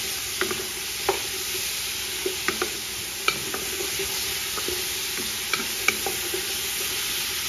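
Onion, carrot and celery pieces sizzling as they brown in hot olive oil in a stainless steel pot, stirred with a wooden spoon, with irregular light knocks and scrapes of the spoon against the pot.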